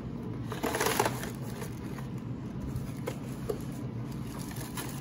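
Cardboard packaging rustling and crinkling as gloved hands open the doll box's accessory compartment. There is a louder burst of rustling about a second in, then a few light taps.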